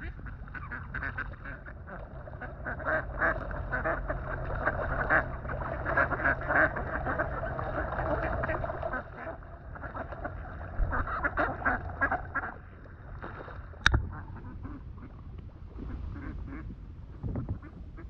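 A flock of feeding waterbirds, pūkeko among them, calling in a dense, chattering run of short calls that thins out about twelve seconds in. One sharp knock close by about fourteen seconds in.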